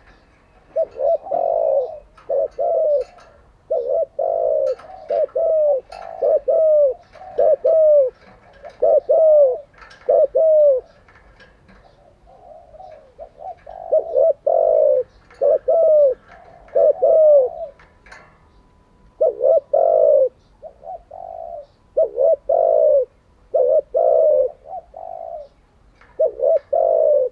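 Spotted dove cooing: repeated phrases of two to four short coos, each note falling in pitch at its end, with brief pauses between phrases.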